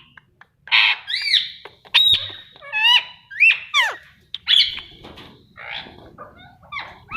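Pet parrot calling: a quick run of short whistled calls that slide up and down in pitch, mixed with harsh squawks, tapering off to softer sounds in the last couple of seconds.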